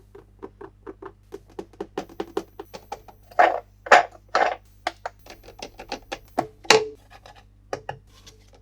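Hands handling plastic toy parts and packaging: a quick run of small clicks and taps, with a few louder scraping rustles around the middle and one more a little later.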